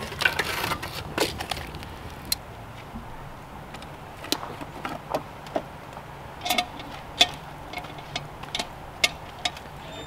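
Metal tongs scraping and clinking while hot coals are moved from a campfire grate onto a cast iron Dutch oven lid: a short scrape at the start, then sharp metallic clinks about once a second.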